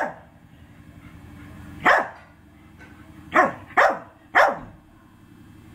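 A large dog barking: a bark at the start, another about two seconds in, then three quick barks in a row.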